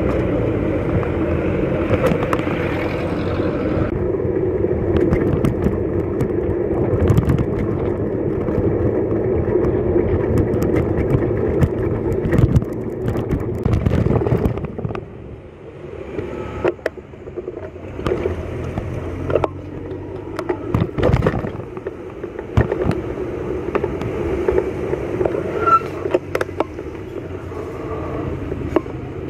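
Steady traffic and road noise heard from a moving bicycle in city streets, with scattered knocks and rattles as the bike goes over bumps.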